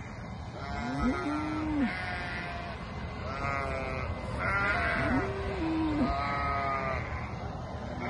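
Sheep bleating: a string of repeated, partly overlapping calls from several animals, some higher and some lower in pitch.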